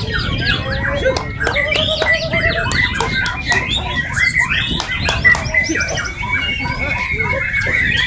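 Many caged white-rumped shamas (murai batu) singing at once: a dense chorus of overlapping whistled phrases, rapid trills and chattering calls, over a low background rumble.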